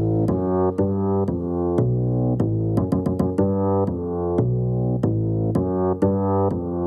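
Instrumental break in a hip-hop beat with no rapping: keyboard chords changing about twice a second over a bass line, with sharp drum-machine ticks. The treble is filtered out, so the beat sounds dull and muffled.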